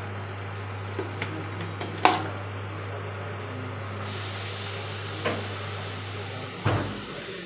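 Kitchen background: a steady low hum with a few light knocks of dishes, and an even hiss that sets in about halfway through.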